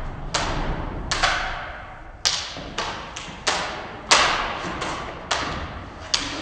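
Toy swords striking each other in a stage fight: about ten sharp clacks at irregular intervals, each echoing off the hard walls of a hallway.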